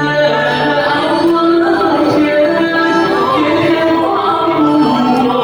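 A song: a singing voice holding long notes over instrumental backing.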